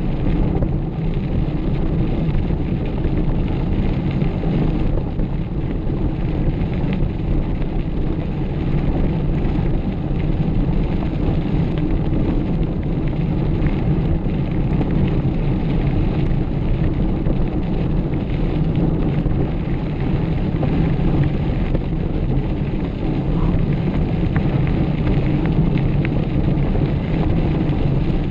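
Steady wind buffeting and rumble on the microphone of a camera carried on a mountain bike being ridden.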